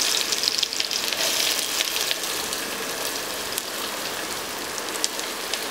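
Chopped onions sizzling in hot oil in a steel pressure cooker: a steady hiss, loudest at first and fading toward the end.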